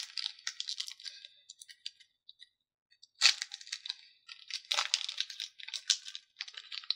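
Pokémon card booster pack packaging being torn open and handled: crinkling and tearing in bursts, with a lull of about two seconds after the first second before a longer run of crinkling.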